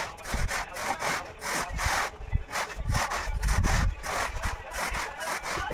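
A metal screed bar sawed back and forth across a semi-dry sand-and-cement floor bed to level it. It makes a rhythmic rasping scrape at about two strokes a second.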